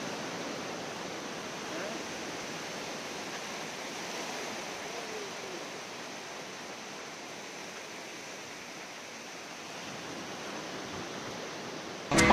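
Sea surf washing onto a sandy beach, an even, steady rush of water. Music cuts in abruptly at the very end.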